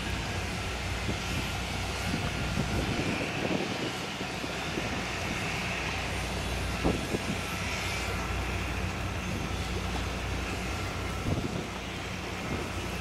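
Marine diesel engines running steadily during berthing: a low, even drone with a hum underneath, and a few faint knocks about halfway through and near the end.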